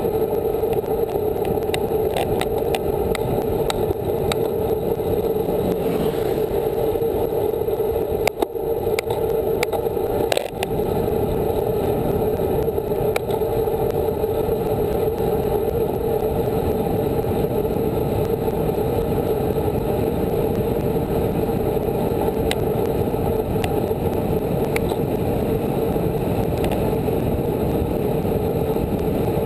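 Steady rush of wind on the microphone and tyre noise from a road bike riding along paved road, with a couple of short knocks about eight and ten seconds in.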